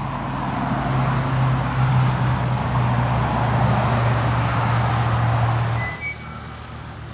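Mini FPV racing quadcopter's motors and propellers buzzing as it flies past at speed, a steady hum under a broad rushing hiss. The sound swells, then cuts off abruptly about six seconds in.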